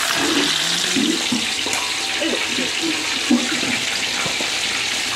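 Seasoned chicken pieces deep-frying in a wok of hot oil, with a steady, even sizzle.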